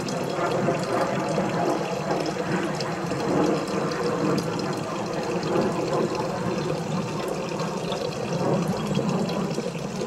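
Water trickling steadily from a tube into a stainless-steel colander and pot, a continuous splashing hiss used as white noise for spirit-box listening. It cuts off suddenly right at the end.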